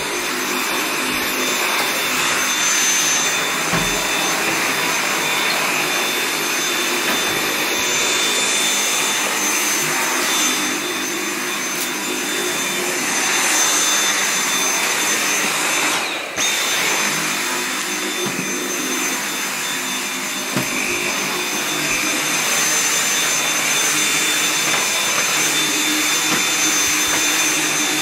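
Dyson cordless stick vacuum running steadily over a hard floor: a rush of air with a steady high motor whine on top. Its sound briefly drops about sixteen seconds in.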